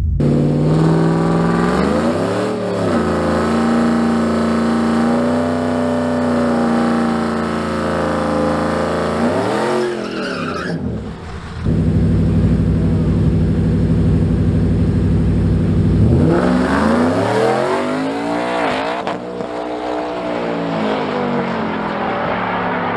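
Ford F-150's Coyote 5.0 V8 heard from inside the cab, idling loudly and revving up and back down twice, with tyre noise. Partway through, the engines of two pickups are heard from outside at the line, running steadily and then revving up and down before holding high revs.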